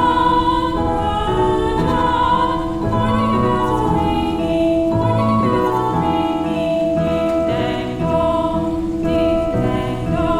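Slow, calm music with long held notes that change about once a second or two.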